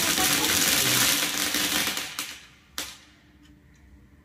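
Loud rustling noise that fades out about two seconds in, followed by a single sharp click.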